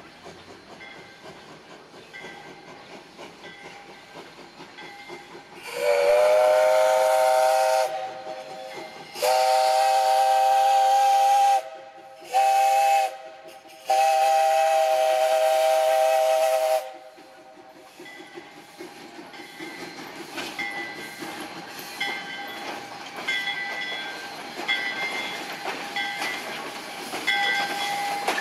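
Whistle of a small saddle-tank steam locomotive, Flagg Coal Co. No. 75, blown in four blasts with several notes at once: long, long, short, long, the grade-crossing signal. Its pitch rises as the first blast opens. Before the whistle there is a low hiss, and after it the locomotive's running noise grows louder as it draws near, with a faint regular ticking.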